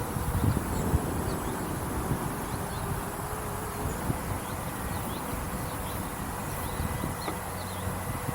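Thin buzzing whine of a small 1s electric ducted fan on a light RC plane in flight, with its pitch dipping briefly about three seconds in and climbing back as the throttle changes. Wind rumbles on the microphone in the first second.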